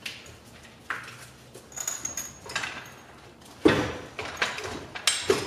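Metal clunks and rattles from a transmission and floor jack being worked into position under a car, with one loud knock about two thirds of the way through and a brief high squeak near the two-second mark.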